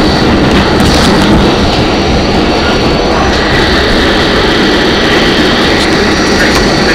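R44 subway car running at speed, heard from inside the car: a loud, steady rumble of wheels and running gear on the rails, with a steady high whine above it.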